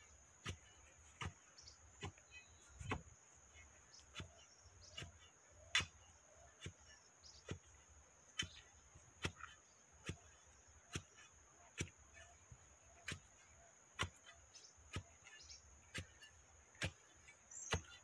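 Long iron digging bar pounding down into the soil around a wooden fence post, a sharp strike a little more than once a second, ramming the earth to firm up the post.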